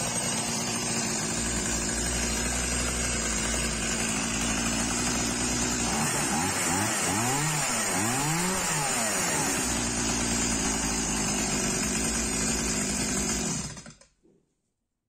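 Freshly serviced Stihl MS170 chainsaw's small two-stroke engine running steadily. Near the middle its revs rise and fall twice, and near the end it is switched off and cuts out.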